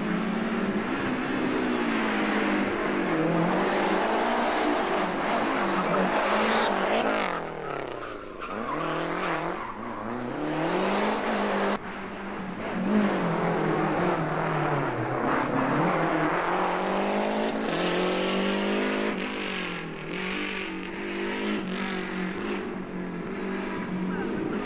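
Rally car engines at full effort on a stage, the note rising and falling repeatedly as the cars brake, change gear and accelerate hard. The sound breaks off abruptly about twelve seconds in, then carries on.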